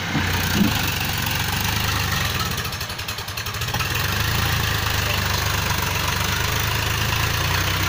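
Powertrac tractor's diesel engine running steadily under load as it drives a rear rotary tiller through a flooded paddy field. The level dips briefly about three seconds in, then steadies again.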